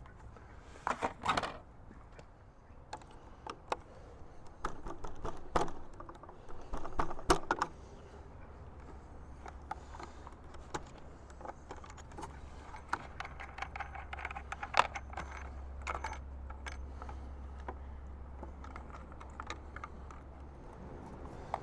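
Irregular small clicks, knocks and rattles of hands handling the plastic front panel, wires and screws of an opened wall-mounted EV charger.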